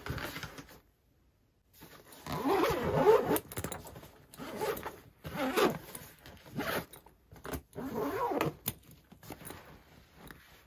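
Zipper on a fabric backpack being pulled closed in a string of short pulls, the longest and loudest about two seconds in.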